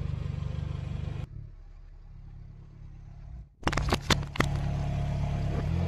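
A car's engine runs at low speed with its tyre creeping over soft rubber toys. About two-thirds of the way in, a quick cluster of sharp plastic cracks and pops comes as the tyre crushes fruit-puree squeeze pouches and their screw caps, bursting them.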